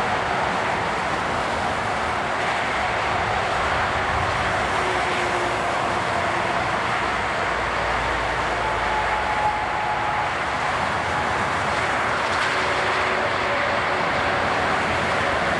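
Steady engine noise with faint, held whining tones that come and go.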